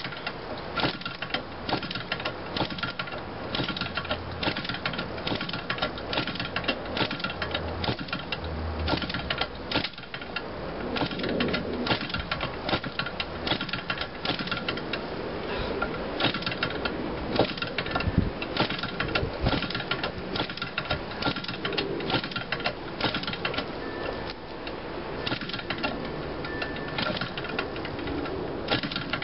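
Model-aircraft gasoline engine being flipped over by hand at its propeller: a rapid, irregular clatter of clicks and pops as it is cranked, without settling into a steady run.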